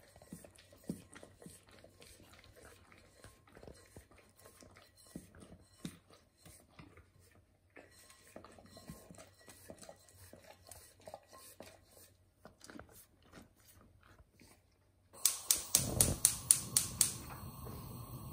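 Faint scattered ticks and soft sounds for about fifteen seconds. Then a gas hob burner's spark igniter clicks rapidly, about six clicks a second for just over a second, and the lit flame runs with a steady hiss under a pot until it cuts off near the end.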